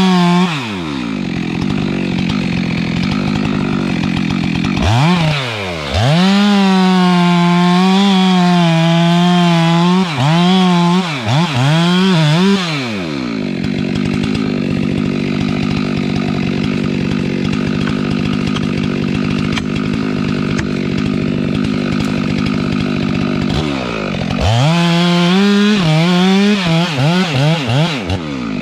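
Stihl MS 462 two-stroke chainsaw cutting wood: the engine runs at full throttle with its pitch dipping and recovering under load, blips the throttle several times, drops to idle for about ten seconds, then revs up again near the end.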